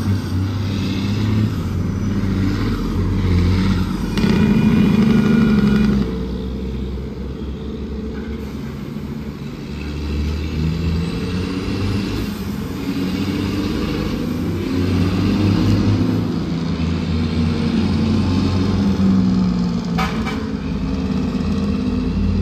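Heavy diesel engine of a loaded dump truck running under load, its low drone stepping up and down in pitch as it changes gear, loudest about four to six seconds in.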